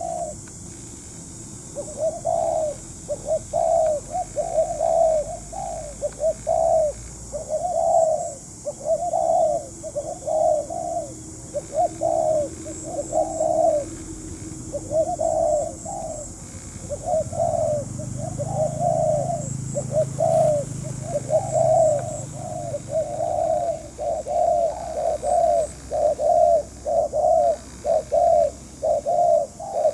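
Spotted dove cooing: its typical phrase of short coos, repeated over and over with only brief gaps.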